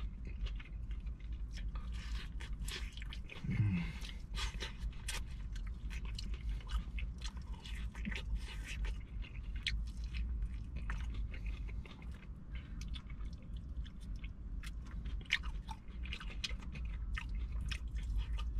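Close-miked chewing of crispy sweet and spicy fried chicken: many quick crunches and wet bites. A brief low hum from the eater comes about three and a half seconds in.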